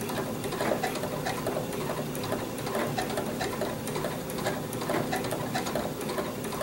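Janome MC4900 sewing machine running steadily while stitching a blanket stitch along a quilt's binding, with a rapid, even ticking of the needle over its motor hum.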